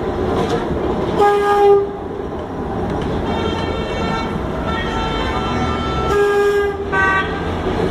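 Tram rumbling along its track, heard from inside the driver's cab, with a short horn blast about a second in, another about six seconds in, and a brief toot just after it.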